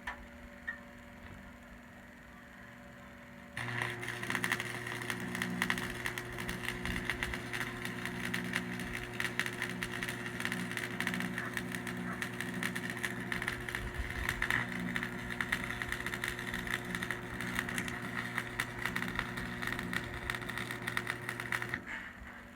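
Hobart AC 250 buzz-box stick welder burning a 7018 AC rod. A steady transformer hum runs under a dense, continuous crackle of the arc. It starts abruptly about three and a half seconds in, as the rod is struck, and cuts off less than a second before the end as the arc is broken.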